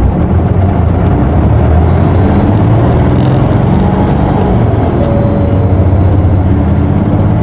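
Isuzu Erga city bus's diesel engine under hard acceleration as the bus pulls away from a stop, heard from inside the cabin.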